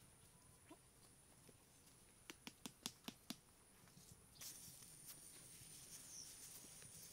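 Six quick, sharp knocks in about a second, over faint outdoor background; a faint steady high hiss comes in about four seconds in.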